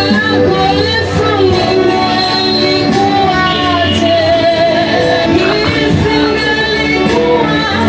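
Music: a gospel song with singing voices over instrumental accompaniment.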